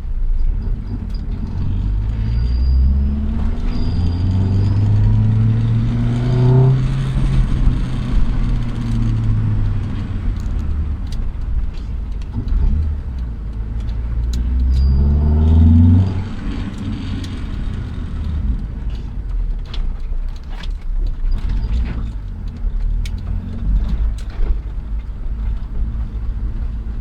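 Honda B20 VTEC engine (2-litre B20 block with a B16 VTEC head) accelerating hard under load. The revs climb twice, in runs a few seconds long, and drop back after each climb.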